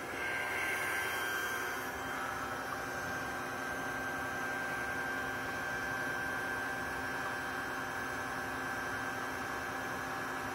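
A steady machine hum with hiss, holding one level with a few held tones and no change.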